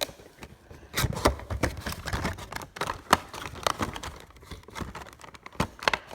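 A bobblehead's packaging being handled and pried open by hand: an irregular run of rustles, scrapes and sharp clicks, with some low bumps.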